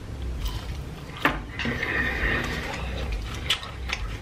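Close-miked biting and chewing of a crispy fried chicken wing, with a few sharp crunches: one about a second in and two more near the end.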